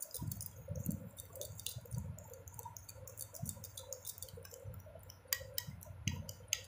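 Metal teaspoon stirring baking soda and water in a glass bowl: quiet, irregular clinks and scrapes of spoon against glass with a little sloshing, with a few sharper clicks near the end.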